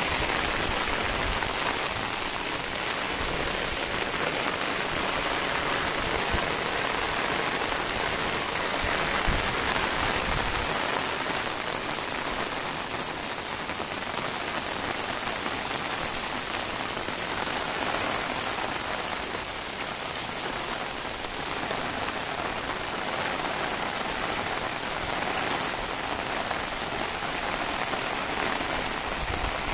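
Heavy rain falling steadily on a concrete rooftop, a dense, even hiss of drops, with a low rumble underneath during the first ten seconds or so.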